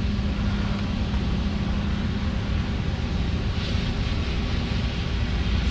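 PSI 2.4L four-cylinder engine of a Yale forklift, running on CNG, idling steadily with a misfire: one cylinder is dropping out because of a failing ignition coil.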